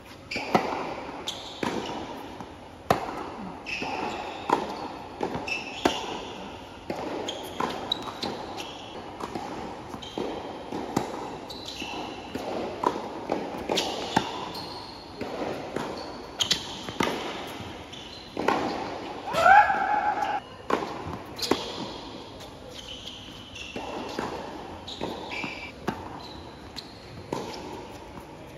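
Tennis rallies on a hard court: sharp racket strikes on the ball and ball bounces, spaced irregularly, with short high squeaks in between. A brief, louder pitched sound comes about two-thirds of the way through.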